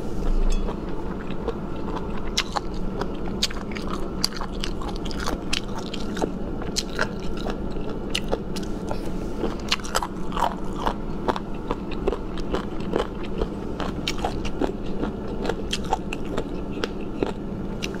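A person chewing boneless chicken feet in chili sauce, close to the microphone: steady chewing with many small sharp clicks.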